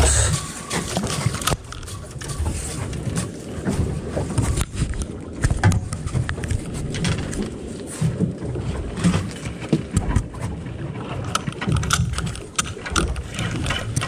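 Low, uneven rumbling noise on a small fishing boat at sea, with scattered light clicks and knocks as a spinning rod and reel are handled and cranked.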